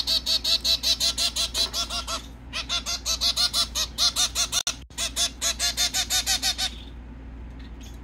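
White zebra finch calling rapidly and repeatedly, about five short calls a second, begging to be fed. The calls pause briefly twice and stop near the end.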